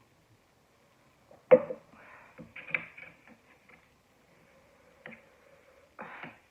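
Close-up eating sounds of someone eating spicy instant ramen with chopsticks: a sharp click about a second and a half in, followed by irregular slurping and chewing noises, another click near five seconds and a short noisy burst near the end.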